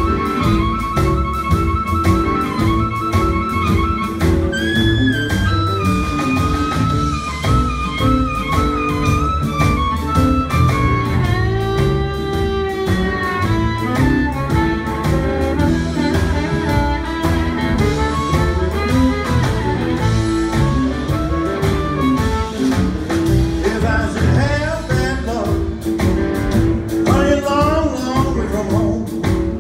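Live blues band playing an instrumental passage: a harmonica carries the lead in held, bending notes over guitar, bass and drums.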